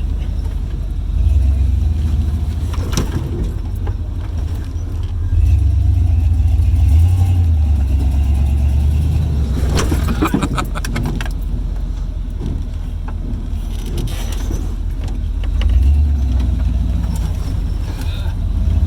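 Off-road Jeep's engine running under load on a trail, its low rumble rising and easing several times, with a few sharp knocks and clatter about 3 and 10 seconds in.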